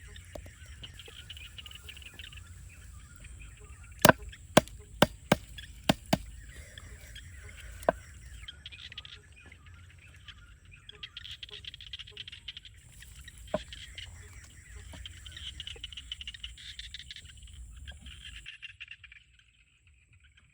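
A quick run of five or six sharp knocks, like hard chopping or striking, about four seconds in, and one more near eight seconds. Under them is a steady outdoor background with a continuous high hiss. The sound goes much quieter near the end.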